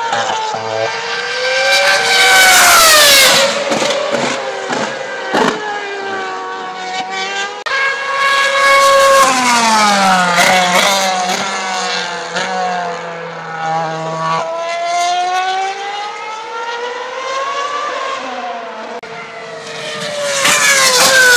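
2012 Formula 1 cars' 2.4-litre V8 engines screaming at high revs as they run through the corners. The pitch swoops down and climbs again with gear changes, with a series of stepped shifts in the middle. The loudest passes come about two seconds in and again near the end.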